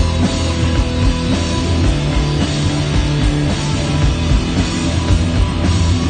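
Live rock band playing an instrumental passage: electric guitars over bass and drums, loud and dense, with strong sustained bass notes, heard through the club's amplification.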